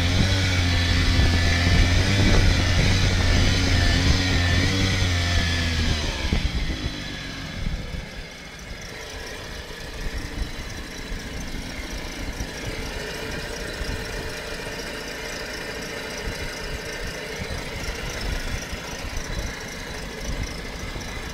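Yamaha 5 HP outboard motor running louder for about six seconds, then dropping to a quieter idle that carries several thin, steady high-pitched tones. This is the squeak the owner hears at idle once the motor is warm after a full-throttle run, which does not occur in neutral; its cause is unknown to him.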